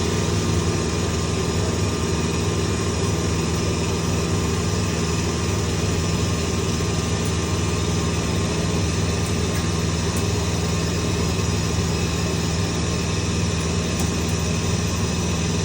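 YASHU CNC KX-52 power-turret CNC machine running with a steady mechanical hum that holds at one pitch throughout.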